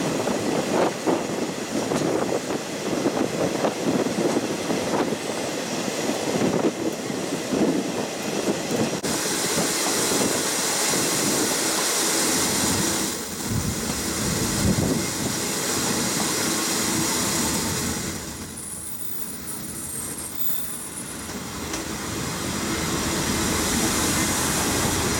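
Old Japanese-built passenger coach rolling on the rails, its wheels clattering rhythmically over rail joints. It then runs more smoothly with a steady rushing hiss as it slows into a station, and a high-pitched squeal from the running gear comes about three-quarters of the way in.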